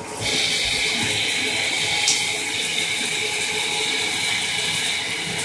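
Water running steadily from a DreamSpa LED shower head, spraying into a bathtub. It gets louder just after the start and then holds steady.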